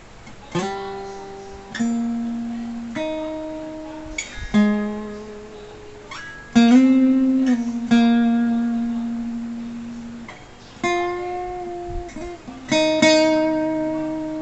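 Sqoe Cranberries 41-inch acoustic guitar played slowly, single notes and chords plucked one at a time and left to ring out, about ten in all.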